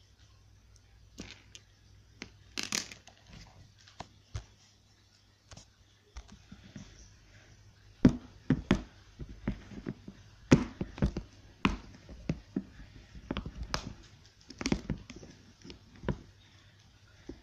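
Beaded slime squished between fingers with faint crackles and pops. Then, from about eight seconds in, a run of sharp plastic clicks and knocks as the clip latches of a snap-lock plastic box are unsnapped and its lid is lifted off.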